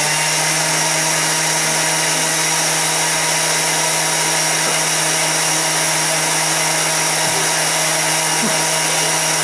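Thermomix motor running at a steady high speed, whipping cashew sauce smooth again after it has settled.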